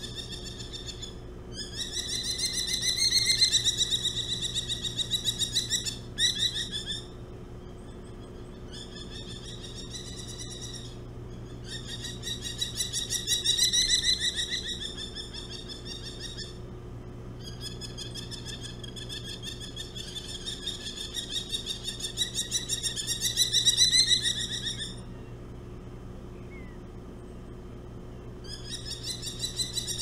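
Merlin giving its rapid, laughing 'ki-ki-ki' chatter: long runs of quickly repeated shrill notes. The runs come in about six bouts of a few seconds each, and each bout swells and then fades.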